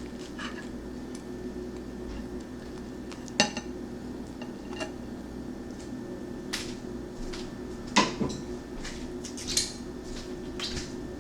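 Metal utensils and cookware clinking and knocking during street-toast preparation, a few separate sharp clinks, the loudest about three and a half and eight seconds in, over a steady low hum.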